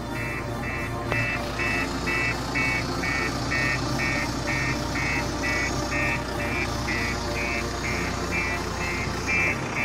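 JCB Loadall telehandler's warning beeper sounding about three times a second, starting a moment in, over the machine's running diesel engine.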